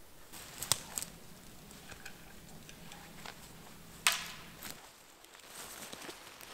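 Handling noise of pitching a tarp shelter on a forest floor: footsteps and rustling, two sharp clicks about a second in, and a loud sharp snap about four seconds in as the tarp goes over the ridge pole. Quieter rustling follows as the tarp edge is pegged down.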